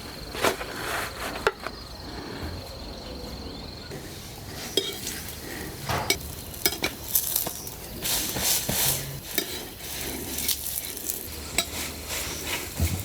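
Metal utensils clinking and scraping against dishes and pots, a run of short light knocks and clicks that grows busier from about six seconds in.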